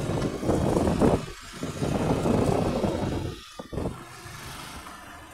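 Wind rushing over the microphone with road and engine noise from a moving motorcycle, in uneven surges with brief dropouts, easing off about four seconds in.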